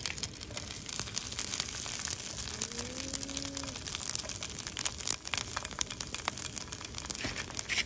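Dried fish frying in hot oil in a pan: a steady sizzle full of sharp crackles and pops.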